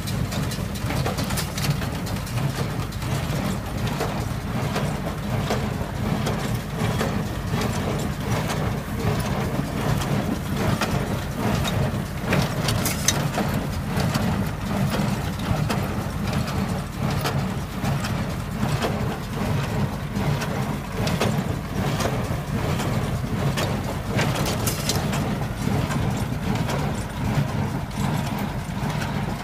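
John Deere 3400 tractor engine running steadily under load while driving a Claas Markant 50 small square baler. The baler knocks in a steady rhythm as it presses hay into small bales.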